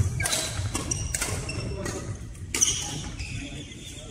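Badminton rally: several sharp racket hits on a shuttlecock, the loudest near the start, about a second in and about two and a half seconds in, with short high squeaks of shoes on the wooden court floor.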